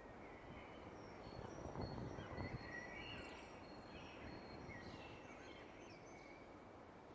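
Several birds singing faintly: many overlapping short chirps and high whistles over a steady low background rumble. The rumble swells briefly about two seconds in.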